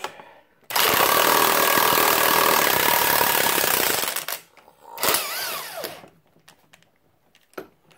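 Impact wrench hammering on the forcing screw of a gear puller to pull a gear off a Ford Model T transmission: a loud run of about three seconds, then a shorter burst a second later whose motor whine falls in pitch as it spins down.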